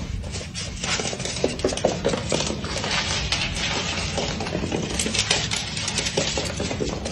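Rapid, irregular clicking and scrabbling of a small pet's claws on a hardwood floor as it scurries about.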